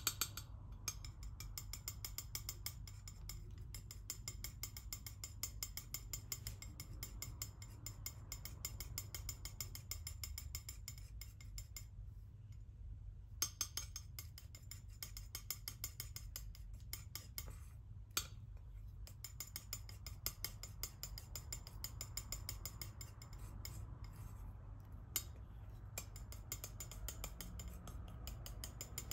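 Metal palette knife scraping and smearing thick acrylic paint across a smooth surface: a faint, continuous fine scratchy texture that stops briefly twice.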